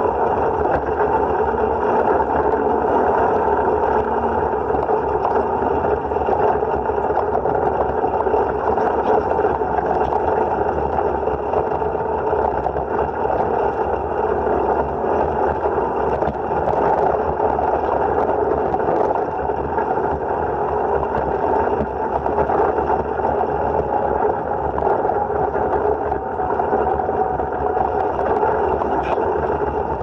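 Side-by-side UTV driving a gravel trail at around 25 to 30 mph: steady engine drone mixed with tyre and gravel noise, heard from inside the cab.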